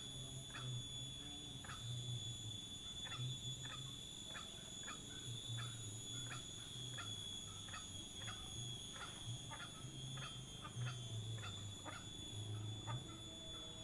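Tropical forest ambience: a steady high-pitched insect drone with short chirps repeating about twice a second.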